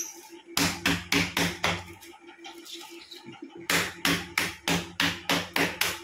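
Hand patting a self-adhesive plastic wallpaper sheet flat against a wall, in quick regular slaps: a short run of about five, a pause, then a steady run of about three a second from a little past halfway.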